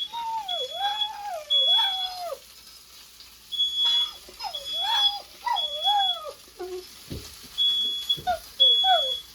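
Smoke alarm sounding in groups of three short, high, steady beeps about a second apart, with a pause between groups. A dog howls along, its voice sliding up and down in wavering yowls between and under the beeps.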